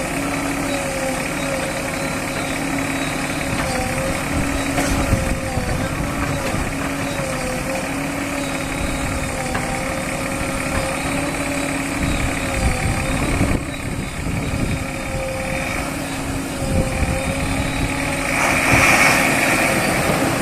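Heavy diesel engine of earth-moving machinery running steadily with a wavering hum, and a louder rushing noise near the end.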